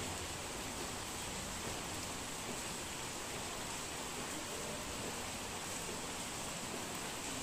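Steady rain falling: an even, unchanging hiss.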